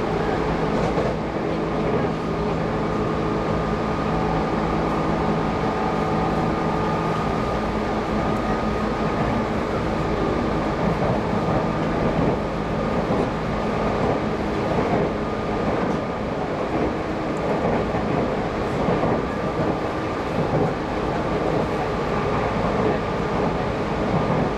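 Inside the carriage of a Tobu Railway commuter train running at speed: a steady rumble and rush of wheels on the rails, with a few steady whining tones running through it.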